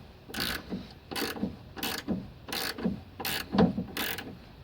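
Hand ratchet wrench clicking in about six short, even strokes, roughly one every 0.7 seconds, as the lower-arm nut is tightened until its split-pin hole lines up.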